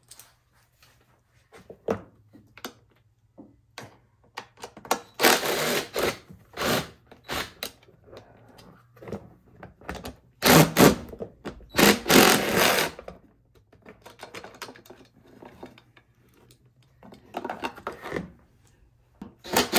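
Clicks and clatter of tools and plastic housing parts while bolts and covers come off a Westinghouse iGen4500DF inverter generator. Several bursts of fast rattling, each one to two seconds long, come from a tool spinning out bolts.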